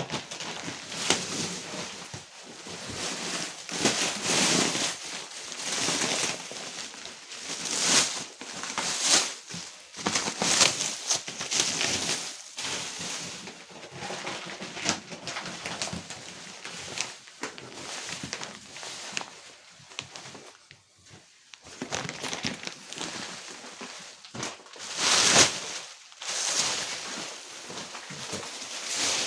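Plastic cling film being pulled and peeled off a rolled-up foam mattress: irregular rustling and crinkling in uneven surges, with a few louder tugs and a short lull near the middle.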